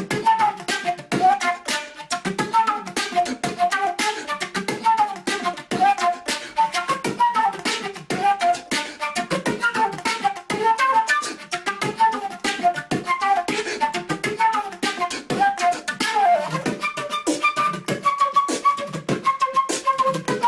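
Beatbox flute: a flute played with percussive mouth sounds made into it at the same time, a quick melody over a dense, fast beat of clicks and thumps. About three-quarters of the way through, the melody shifts to longer held notes while the beat goes on.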